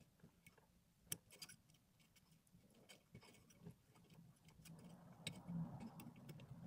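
Metal pick scraping and clicking inside a phone's charging port as packed lint is dug out: faint scattered ticks, one sharper click about a second in, and a soft scratchy rustle near the end as a wad of lint is pulled free.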